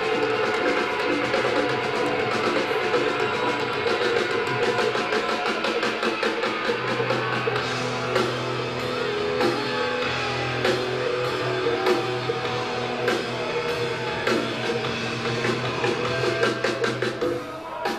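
Live rock band playing an instrumental passage: electric guitars, bass guitar and drum kit, with no singing.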